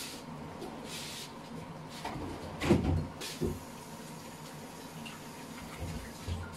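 Kitchen handling noises: a loud knock about three seconds in, a softer one just after, and a couple of dull thumps near the end, over a low steady background.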